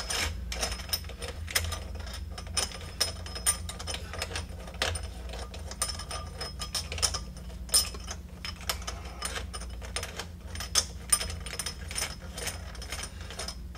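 Metal nut being spun by hand up the threaded body of a sink's pop-up drain assembly: a run of small, irregular metallic clicks and ticks as it turns on the threads, running freely now that it is past Teflon tape on the threads.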